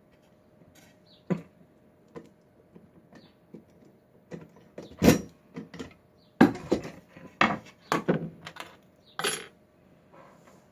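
Small hard objects clacking and clinking on a work surface as a lock pinning tray and lock are handled and set down: scattered sharp knocks, a louder run of them in the second half.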